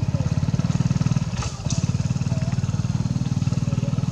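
A small engine idling steadily, a fast even low putter. A few faint short squeaks sound above it, and there is one sharp click about a second and a half in.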